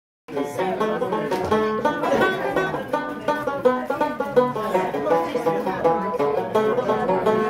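Tenor banjo being played: a lively tune of quick plucked notes that starts abruptly about a quarter second in, after silence.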